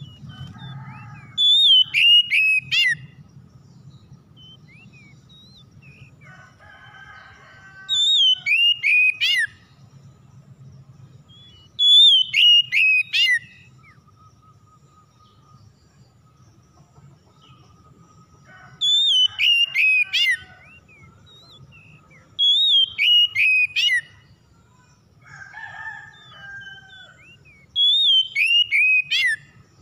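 Oriental magpie-robin singing: six loud whistled phrases a few seconds apart, each a quick run of four or five notes falling in pitch, with a few softer, lower notes between them.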